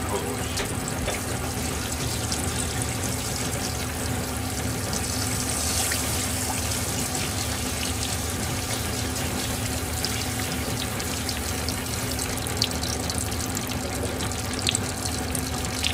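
Flour-coated flounder deep-frying in oil at about 190 °C: a steady, vigorous sizzle with many fine crackles as the moisture in the batter and fish boils off.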